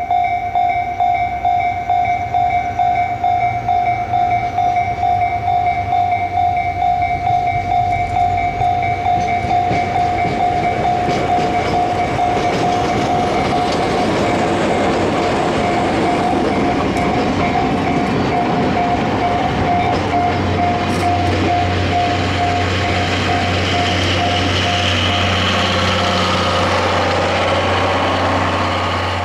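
Level-crossing warning bell ringing in rapid repeated strokes as a DE10 diesel locomotive hauls a train past. The rumble of the diesel engine and of wheels rolling on the rails builds from about a third of the way in, and a low engine hum joins later. The towed C11 steam locomotive is cold, with no fire, so it adds no steam exhaust of its own.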